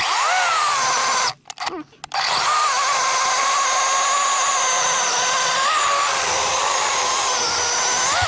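DeWalt 20 V cordless electric chainsaw running with a high motor whine. It stops for about a second near the start, then spins up again and runs on, its pitch dipping slightly now and then.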